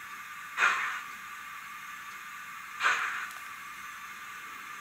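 Zimo sound decoder in an HO-scale Roco BR52 model steam locomotive playing slow exhaust chuffs through its small speaker. Two chuffs about two seconds apart, each sharp then fading, over a steady faint hiss. The slow chuff rate goes with the locomotive crawling at low speed.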